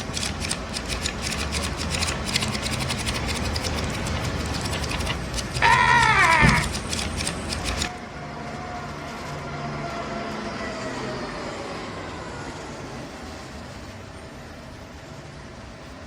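Flipbook pages riffling as a rapid, dense ticking over a low hum, with a loud tone falling steeply in pitch about six seconds in. The ticking stops about eight seconds in, leaving a fainter steady sound that slowly fades.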